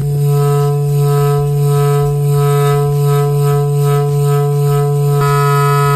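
Homemade balloon-reed horn blowing one long, steady low blare, with a brighter edge coming in about five seconds in.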